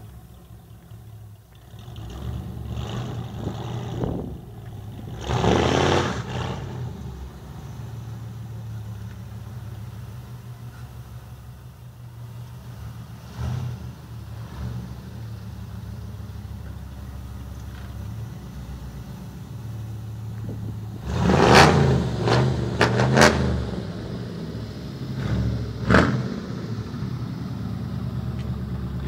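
Ford Mustang GT's 302 (5.0 L) V8 idling with a steady low rumble, blipped hard on the throttle several times: one big rev about six seconds in and a quick run of blips near the end.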